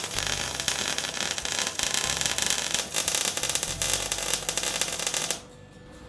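MIG welding arc crackling and spitting steadily as a metal joint is welded, cutting off suddenly about five and a half seconds in.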